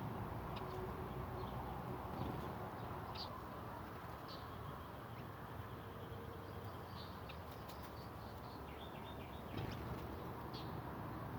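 Wild garden birds giving short, high chirps and calls scattered through, with a quick run of notes near the end, over a steady low background noise.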